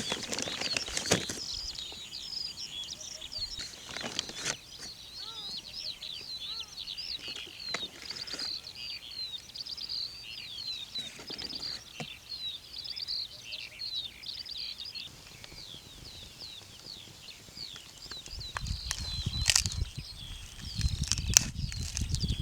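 Many small birds chirping busily and continuously, with scattered light clicks and knocks. About three-quarters of the way through, a low rumbling noise joins in.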